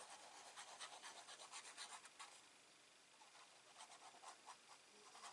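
Faint, irregular scratching and rubbing of card stock and paper being handled and pressed on a craft table.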